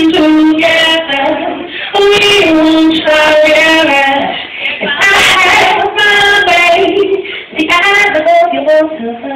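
A woman singing live, in sung phrases with long held notes and short breaks between them, about two and five seconds in.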